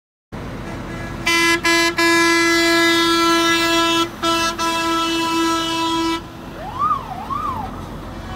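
Fire truck horn sounding in a string of blasts, two short toots then long held ones, for about five seconds, followed by its siren wailing up and down twice, over the low running of the truck's engine.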